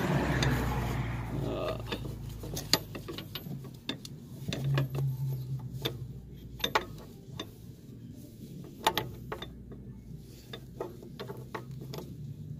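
A Snap-on socket ratchet being handled, giving scattered, irregular clicks and light knocks. There is rustling handling noise in the first couple of seconds.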